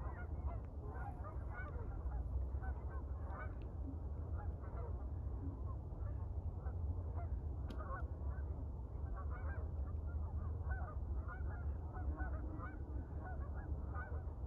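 A large flock of Canada geese on the water honking without pause, many calls overlapping, over a steady low rumble.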